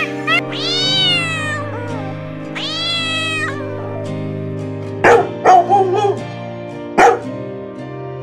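Two long drawn-out cat meows, each rising then falling, followed by a few short, sharp animal calls about five and seven seconds in, all over steady background music.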